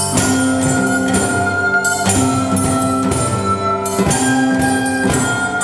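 Instrumental music: held chords that change about every two seconds, with light percussion.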